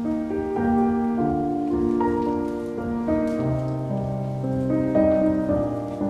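Background piano music: a gentle melody of held notes over chords.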